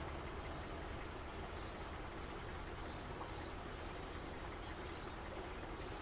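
Outdoor ambience: a steady low background rumble with small birds chirping faintly, short high chirps every second or so.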